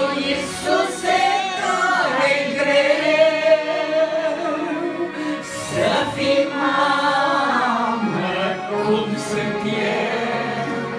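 Singing of a slow Romanian religious song, in long held, wavering notes.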